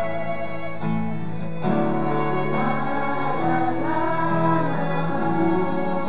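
A small acoustic ensemble of acoustic guitars, violin, cello and keyboard playing a gentle piece live. A melody line rises and falls over strummed guitar chords and held low cello notes, with the harmony changing about one and a half seconds in.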